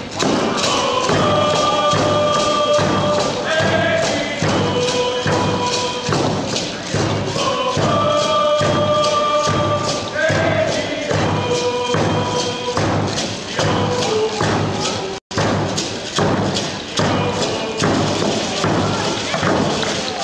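Hand drums beaten in a steady pulse, about two beats a second, under a group of voices singing a Northwest Coast Native dance song in long held notes.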